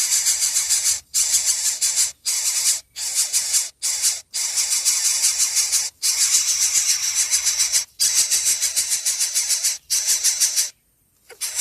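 Baby birds begging: rapid, high-pitched raspy calls in bursts of a second or two with short breaks, the sound of nestlings clamouring for food.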